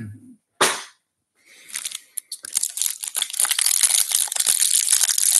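Cellophane wrapper on a stack of baseball cards crinkling and tearing as it is pulled open, building up from about a second and a half in. A single sharp knock about half a second in.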